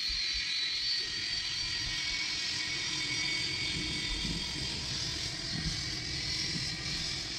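Jet airliner's engines running at low power as it moves past: a steady rushing hiss over a low rumble, with a thin high whine that fades over the first few seconds.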